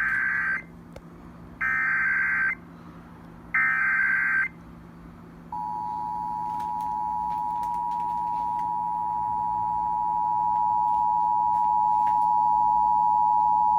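Emergency Alert System broadcast opening: three short bursts of SAME header data tones, about a second apart, then the EAS two-tone attention signal, a steady dual tone that comes in about five and a half seconds in and holds, slowly growing louder. It is the standard lead-in that precedes the spoken alert.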